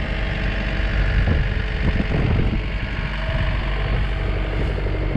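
Engine of a bucket loader running steadily near idle.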